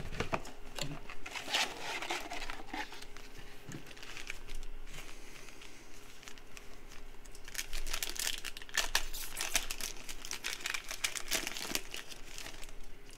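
Crinkly plastic wrappers of Panini Prizm trading card packs being handled and torn open, a dense run of crackling that is heaviest in the second half.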